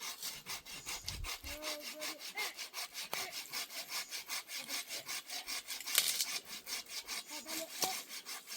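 Hand saw cutting through wood with steady, quick back-and-forth strokes, about four to five a second.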